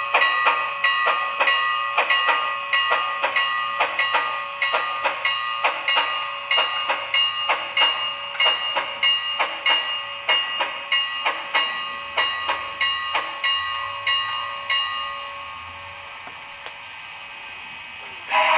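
Sound decoder of an HO-scale Athearn Union Pacific Big Boy model playing steam-locomotive exhaust chuffs through its small speaker, about two a second. The chuffs weaken and die away as the engine drifts to a stop, leaving a quieter stretch. A loud steady sound cuts in right at the end.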